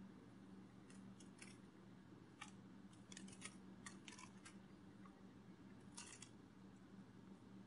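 Near silence: a faint steady low hum with scattered faint clicks, some coming in quick clusters.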